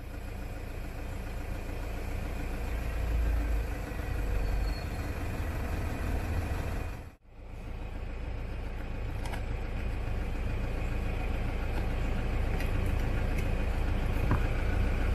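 Toyota Prado's engine idling steadily, heard from inside the cabin by the driver's footwell. The sound drops out briefly about seven seconds in, then the same idle carries on.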